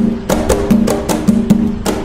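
Atabaque drums playing the nagô rhythm: a steady repeating pattern of ringing open drum tones and sharp, dry strikes, several strokes a second.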